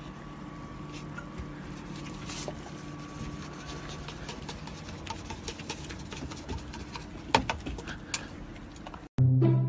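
Soft rustling and light taps as a small goat moves about in straw with a paper cup over its muzzle, over a low steady hum, with a few sharper clicks about seven to eight seconds in. Music with a low horn-like note starts just before the end.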